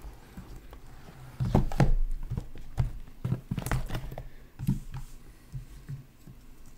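Hands handling objects on a tabletop: a run of knocks and taps that starts about a second and a half in and dies down after about five seconds.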